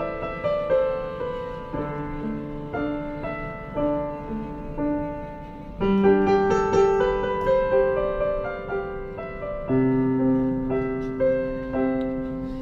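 Background music: a piano playing slow chords and a melody, with a new chord struck every few seconds.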